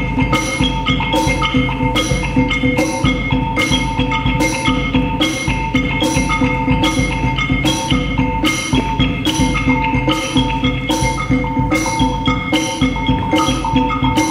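Percussion ensemble playing: several pitched tones ring on steadily under an even pulse of sharp strikes, about two a second.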